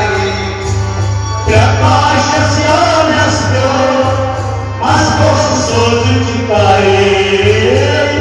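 Kashmiri folk song: singing accompanied by a harmonium and a hand drum keeping a steady beat. New sung phrases come in about a second and a half in and again about five seconds in.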